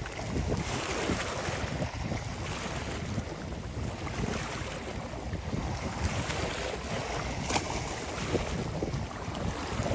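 Wind buffeting the microphone in uneven gusts over the wash of waves on open sea water.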